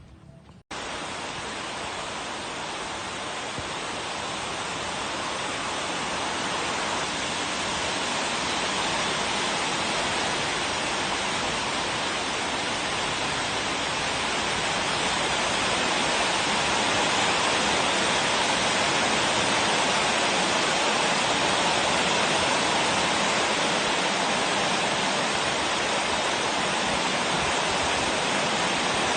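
A steady, even rushing hiss that starts abruptly about a second in and slowly grows louder.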